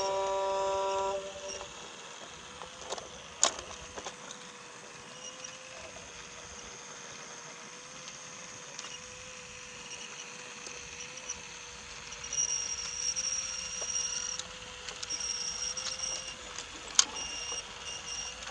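Battery-powered Brio toy locomotive running on wooden track: a steady thin motor hum, with a higher whine that comes and goes and two sharp clicks. A short electronic horn-like tone opens it and stops about a second in.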